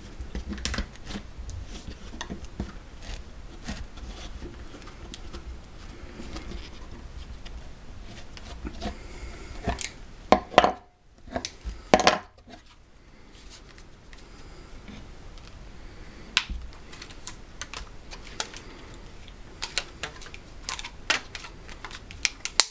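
Hands handling a cloth-wrapped steel adjustable wrench and spring clamps on a wooden board: rubbing and scattered light clicks and knocks, with two louder clattering knocks about ten and twelve seconds in.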